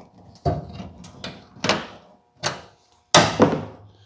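Woven stainless steel mesh popping and snapping as it is pressed by hand into the grille surround: about six sharp pops, the loudest two about three seconds in.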